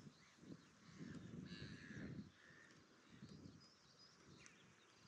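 Near silence: faint outdoor ambience with faint low rumbles and a faint distant bird call about a second and a half in.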